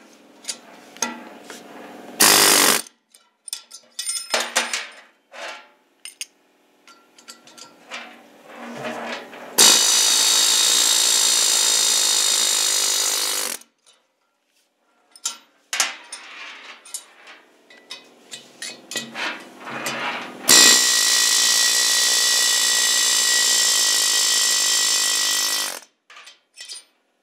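Pneumatic air hammer driving tight knock-in valve guides out of a 454 big-block Chevy cylinder head. It gives a short burst about two seconds in, then two long steady runs of about four and five seconds, with sharp metal clinks and knocks in between.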